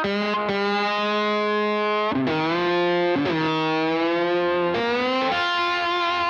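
Background music: the instrumental intro of a country song, led by electric guitar with distortion playing long held notes that bend and slide.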